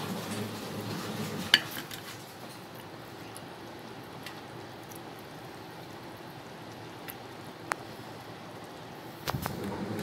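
Pot of beef soup boiling steadily on a portable gas stove. A sharp click comes about a second and a half in and another near eight seconds. The sound grows louder, with a few knocks, near the end.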